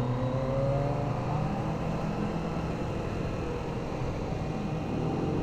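Kawasaki ZX-25R's 250 cc inline-four engine running through its stock exhaust while riding, its note rising slowly as it pulls through a gear, and rising again near the end.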